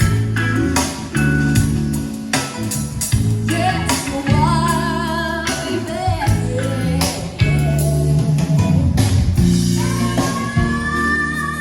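Music with a singer, guitar, bass and a steady beat, played through a Crown RCX15 loudspeaker with a flat, un-equalised setting. Sung phrases come in about four seconds in and again near the end, over a strong bass line.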